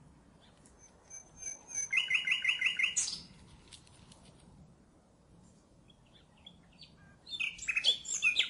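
Nightingale singing: two song phrases separated by a pause of about four seconds. The first begins with a high whistle and ends in a run of rapid repeated notes, about seven a second; the second is a denser, more varied burst near the end.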